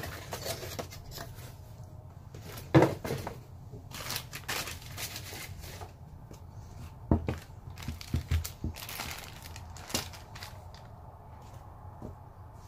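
Hands rearranging unboxed camera accessories: plastic bags crinkling and paper rustling, with scattered knocks as items are set down, the sharpest about three seconds in and a cluster near the end.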